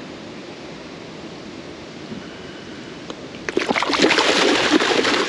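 Water lapping quietly, then about three and a half seconds in a hooked northern pike thrashes at the surface, a loud burst of splashing that runs to the end.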